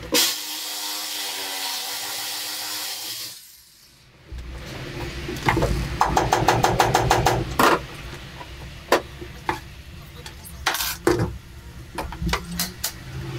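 Hand and power tools working on a bare metal van floor: a power tool runs steadily for about three seconds, then after a short pause comes a fast run of clicks, about ten a second, followed by scattered metallic knocks and clanks.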